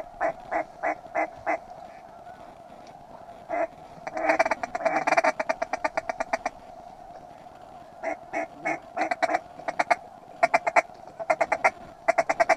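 Mallard-type hen quacking: a string of about six evenly spaced quacks, then a fast chattering run of quacks from about four to six seconds in, then more quick strings of quacks.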